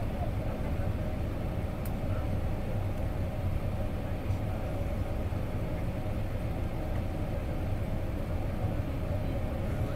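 Steady cabin noise inside an Airbus A380 during its descent: the even roar of engines and airflow heard through the fuselage, deep and unchanging.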